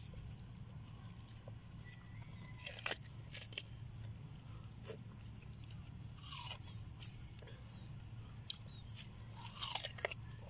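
Watermelon being bitten and chewed: wet crunches at uneven intervals, several in a cluster near the end, over a steady low hum.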